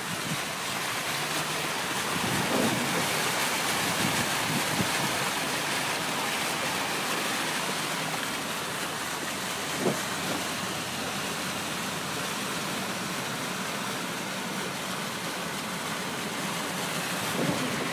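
A car on flooded roads in a tropical storm, with a steady rushing hiss of rain and water around the vehicle. There is a short knock about ten seconds in.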